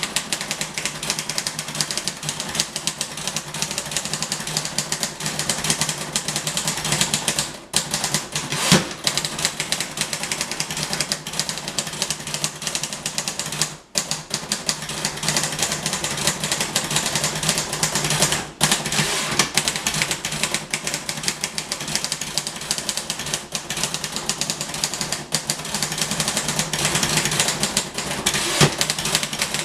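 Royal Quiet Deluxe portable manual typewriter being typed on at full speed: a rapid, continuous clatter of keystrokes, broken by short pauses a few times.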